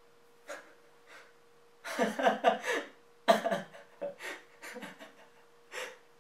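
A man panting and gasping in short, breathy bursts, his voice breaking through in quick pulses, starting about two seconds in and coming again after a short pause.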